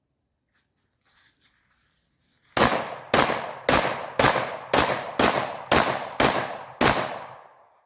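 Nine gunshots from a semi-automatic firearm fired in steady succession, about half a second apart, each with a short echoing tail.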